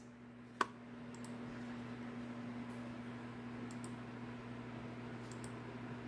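A single sharp click from a laptop touchpad about half a second in, then a few faint ticks over a steady low hum.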